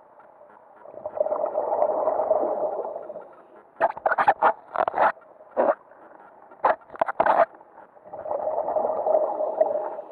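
Scuba diver breathing through a regulator, heard underwater: a smooth rushing breath, then a run of bubbling bursts of exhaled air, then another rushing breath near the end.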